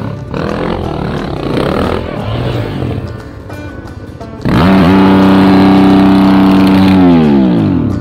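Off-road motorcycle engines working up a rutted climb. About four and a half seconds in, a much louder held tone cuts in, sweeps up, holds for about three seconds, then slides down in pitch and stops.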